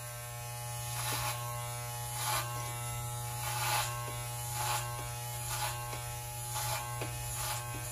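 Electric hair clippers with a comb guard attachment buzzing steadily, with a short rustling swish about once a second as they pass through the hair.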